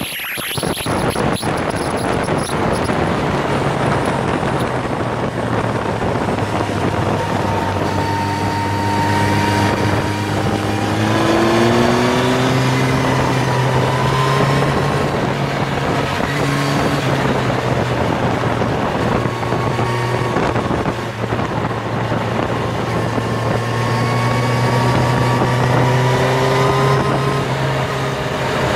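Motorcycle at speed, heard from onboard: the engine note rises and falls as it accelerates and shifts, under heavy wind noise on the microphone.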